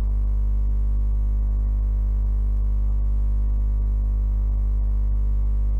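Steady low electrical mains hum with its overtones. Two faint ticks come from a wooden spoon stirring in an aluminium pressure cooker.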